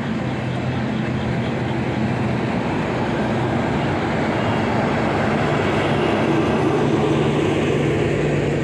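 Passenger train rolling past at close range, a steady rumble of wheels on the rails. A low steady hum grows louder in the second half as the train's luggage, brake and generator car comes by.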